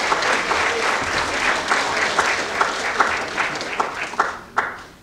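Theatre audience applauding, the clapping thinning out to a few last claps and dying away near the end.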